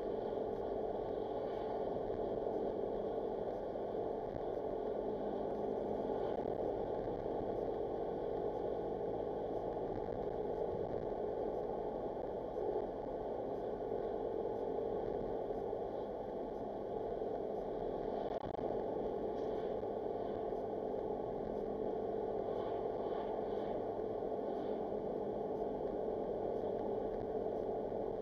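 Steady road and engine drone heard inside a moving car's cabin, with a constant low hum running under the tyre noise.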